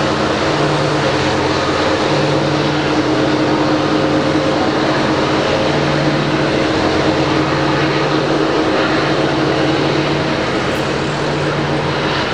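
A coal train's four NSW 82 class diesel locomotives, with EMD 710 two-stroke engines, working hard under load: a loud, steady engine drone with a low throb that swells and fades. Under it runs the rumble and rail noise of the loaded coal wagons rolling past.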